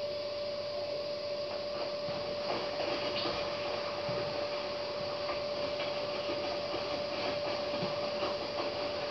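Hotpoint front-loading washing machine turning its drum, the wet laundry tumbling inside with light knocks. A steady tone runs underneath.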